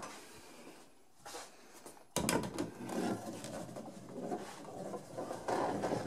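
Clamps knocking and rattling against a wooden clamp rack as they are handled. It is fairly quiet at first, then a dense clatter of small knocks starts about two seconds in.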